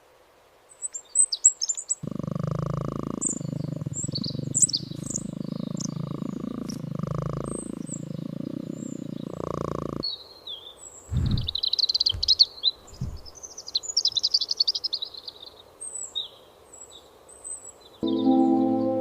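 Small birds chirping and trilling, high and in short calls, with a steady low rushing noise underneath for several seconds in the first half and a few low thumps after it. Soft music with held notes comes in near the end.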